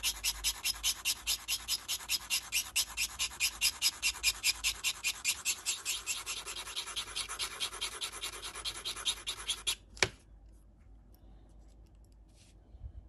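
Tip of a small flat-blade watchmaker's screwdriver scraping back and forth on an 800-grit diamond sharpening stone, in rapid, even strokes at about five a second, as the blade end is ground square. The scraping stops abruptly about ten seconds in, followed by a single sharp click.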